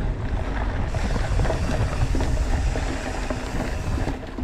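Wind rushing over a GoPro's microphone while riding a mountain bike, with the steady low rumble of the tyres rolling and a few faint rattles from the bike.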